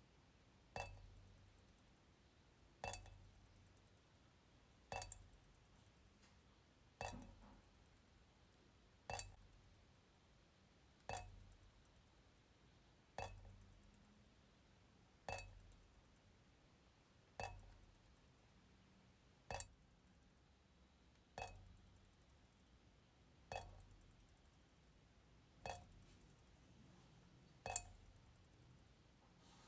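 Kitchen faucet dripping slowly into the sink: single drops land about once every two seconds in an even rhythm. Each drop is a short, sharp click with a brief ring, and it is near silent between drops.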